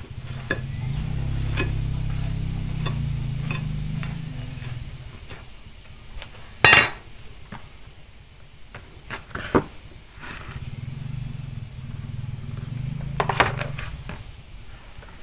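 A metal blade scraping and digging in hearth ash, with scattered sharp metallic clinks and knocks; the loudest comes about seven seconds in, and two more come near ten and thirteen seconds. A low drone runs underneath for the first few seconds and returns later.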